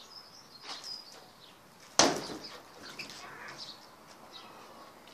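A single sharp knock about two seconds in. Short, faint high bird chirps sound in the first second.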